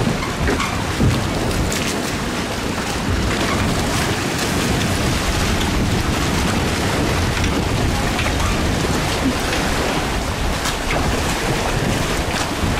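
Steady rushing noise of wind on the microphone and rough, choppy water.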